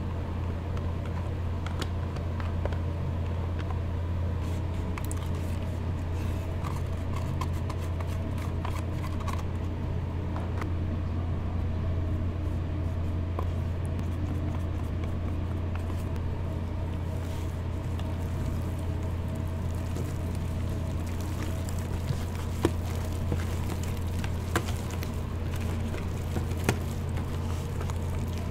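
Steady low mechanical hum with light clicks and knocks of handling over it. The handling grows busier in the second half, where gloved hands knead ground shrimp paste in a plastic tub.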